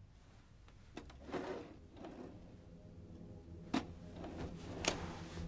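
A VHS cassette being handled and pushed into a VCR's front slot, with plastic scraping and clunking as it goes in and two sharp mechanical clicks near the end as the loading mechanism takes it.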